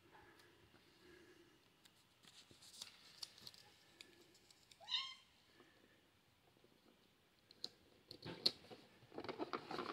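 A cat meows once, briefly, about halfway through. Faint clicks and taps come before and after it, and a louder spell of them comes near the end.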